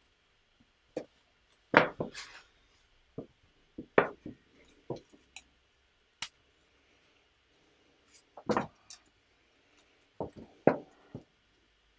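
Plastic LEGO parts clicking and knocking as wheels are pushed onto half Technic pins and the model is handled: a dozen or so irregular sharp clicks, louder ones about two and four seconds in and again twice near the end.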